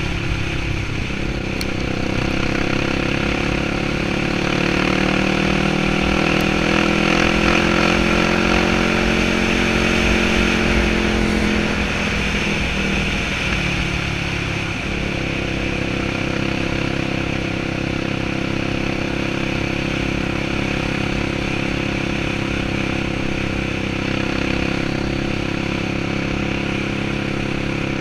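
Yamaha sport quad's engine running at speed, its pitch climbing slowly for several seconds, then dropping about halfway through and settling into a steady cruise. Wind rumbles on the microphone throughout.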